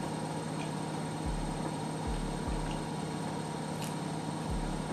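Steady background hum and hiss, with a few faint soft ticks.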